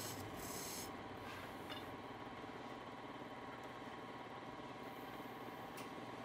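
Wood lathe running steadily, with a brief high hiss at the start.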